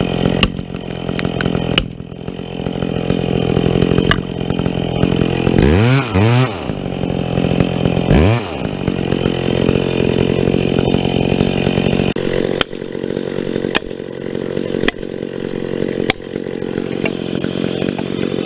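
Two-stroke chainsaw running hard, cutting into a standing tree, most likely the back cut of a felling. The engine pitch drops and swings back up twice, about six and eight seconds in, then holds steady.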